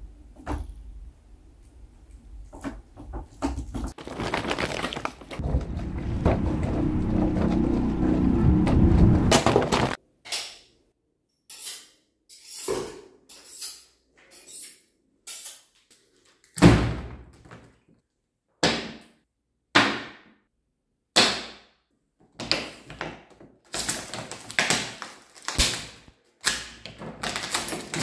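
Plastic water bottle crackling and popping: several seconds of loud continuous crackle, then a run of single sharp pops every second or two, each dying away quickly.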